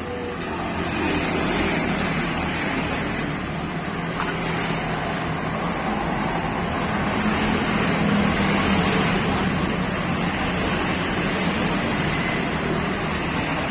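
Steady motor-vehicle engine noise with a low hum, a little louder around the middle.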